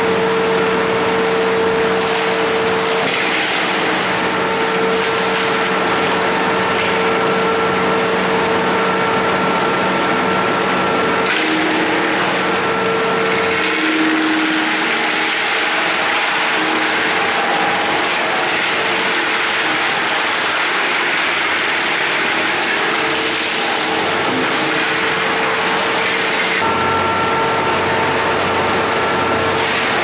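Large industrial wood chipper running steadily with a loud mechanical hum, its chain-slat infeed conveyor moving. About halfway in, as wooden boards are fed in and chipped, a coarser rushing noise takes over, and the steady hum comes back near the end.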